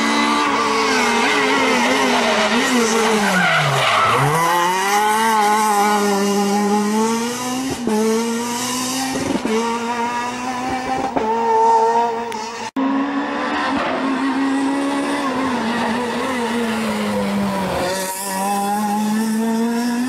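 Renault Clio R3 rally cars' 2.0-litre four-cylinder engines at full effort on a tarmac stage. The engine note drops sharply as the car slows for a corner about four seconds in, then climbs again through quick gear changes. It breaks off abruptly about thirteen seconds in, and a second car is heard revving through bends.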